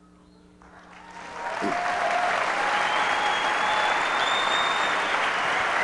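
Large audience applauding. The applause swells from quiet about a second in and then holds loud and steady, with a few long high whistles above the clapping.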